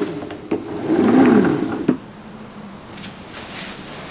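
Square Off self-moving chessboard's motor-driven carriage under the board sliding a chess piece into place. Its motor whine rises and falls in pitch as it speeds up and slows, and stops with a click about two seconds in. It is not too loud, but you can definitely hear it.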